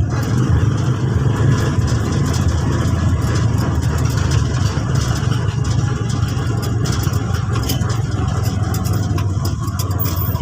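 A motor vehicle's engine running steadily, with light rattling clicks over it.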